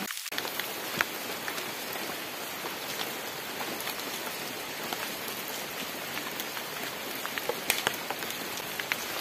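Steady rain falling, an even patter with scattered sharper drop ticks.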